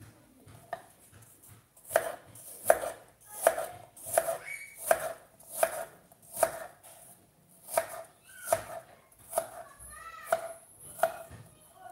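Knife chopping food on a wooden cutting board: an even series of sharp knocks, a little more than one a second, starting about two seconds in.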